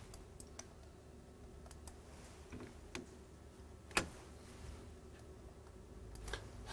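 Quiet room tone with a few faint, scattered clicks, the loudest about four seconds in, typical of keys or controls being pressed.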